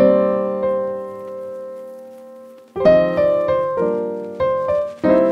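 Background piano music: one chord rings and fades away slowly, then a run of struck chords follows about every half second.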